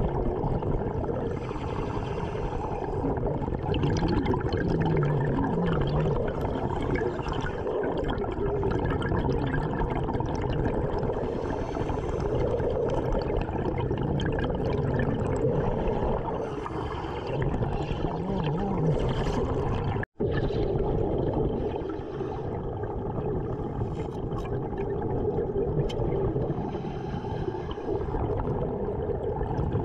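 Underwater sound of a diver breathing through a regulator: a steady rush with bursts of exhaled bubbles gurgling every few seconds. The sound cuts out for an instant about two-thirds of the way through.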